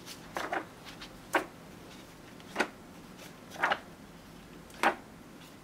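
Pages of a large hardcover book being turned one after another: five short paper swishes, about one a second.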